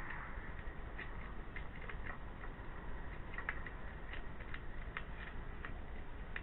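Hedgehog chewing dry food from a plate: irregular crisp clicks and smacks, several a second, over a steady low hiss.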